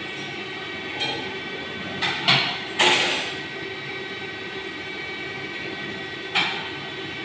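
Steady roar of lit gas wok burners in a commercial kitchen, broken by a few sharp clatters. The loudest clatter comes about three seconds in, with a short hiss after it.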